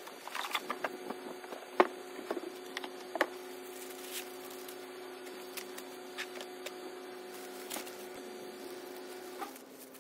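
Unpacking sounds: cardboard and plastic packaging rustling as lawn-edger parts are lifted out, with scattered knocks and clicks, the sharpest about two seconds in. A steady hum runs underneath for most of it.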